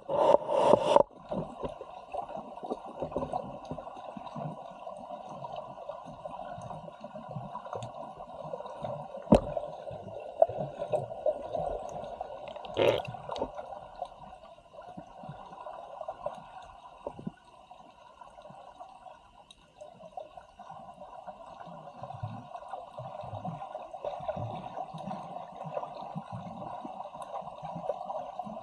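Muffled water gurgling and sloshing, steady throughout, with a louder rush in the first second and two sharp clicks about nine and thirteen seconds in.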